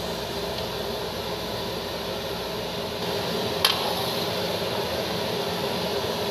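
Large wok of frothing liquid boiling hard over a fire as sweets are cooked in it, giving a steady bubbling hiss. A single sharp click about three and a half seconds in.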